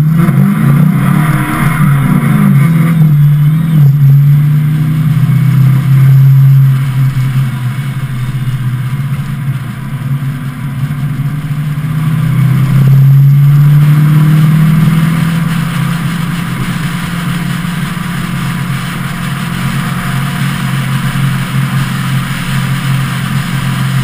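1991 Ford Mustang 5.0 V8 with an SLP cat-back exhaust, heard from the car itself: the engine note climbs under acceleration over the first few seconds and again about twelve seconds in, then settles into a steady cruise. A steady rush of wind and road noise runs beneath it.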